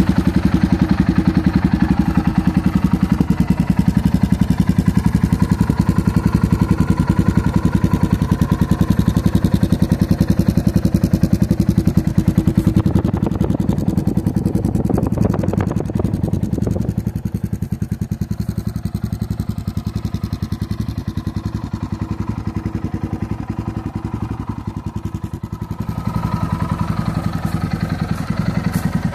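Yamaha Ténéré 660 single-cylinder engine running at idle through an aftermarket sport exhaust, a steady rapid pulsing exhaust note. It is quieter through the middle stretch and louder again near the end.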